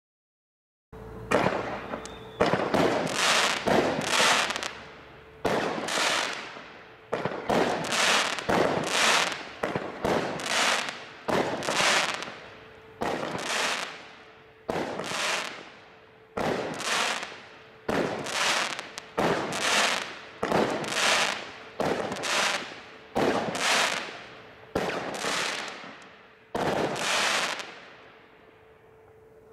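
A 19-shot firework barrage cake firing its brocade comet shots, each bursting with a report. The sharp bangs start about a second in, come roughly one a second, and each one trails off before the next, dying away near the end.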